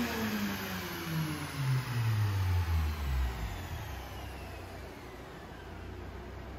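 Turbocharged Honda K20Z3 2.0 L inline-four in a 2008 Civic Si winding down after a full-throttle dyno pull: its revs fall steadily over about three seconds and settle into a low, steady idle hum. A faint high whine slides down in pitch alongside.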